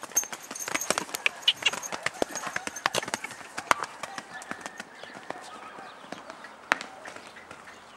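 Hoofbeats of a young grey Andalusian (PRE) stallion moving fast and loose on slippery dirt ground, a quick irregular run of knocks that comes thick for the first half, then thins out as he moves away, with one sharp hit near the end.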